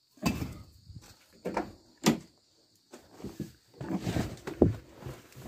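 Knocks and clunks of someone climbing into a car, with a car door shutting in a sharp thump near the end.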